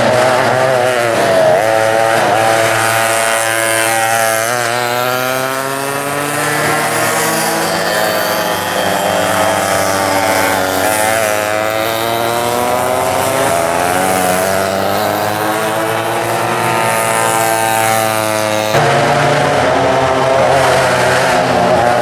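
Vintage two-stroke rear-engine racing karts (McCulloch and West Bend engines) running flat out, several engines at once, their high buzzing pitch rising and falling as the karts accelerate and ease off for the corners. The sound changes abruptly near the end.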